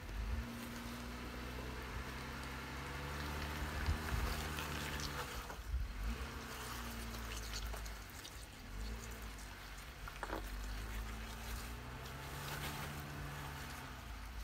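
Jeep Wrangler JL engine working in low range as it crawls up a rock ledge, its note rising and easing off twice as the throttle is fed in and backed off.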